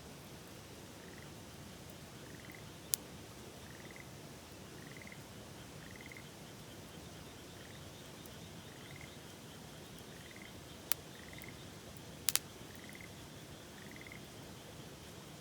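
A frog calling in short, rising, trilled notes about once a second, with fainter calls higher up, over the steady rush of a river. Wood campfire pops crack sharply three times, once early on the tape and twice close together near the end.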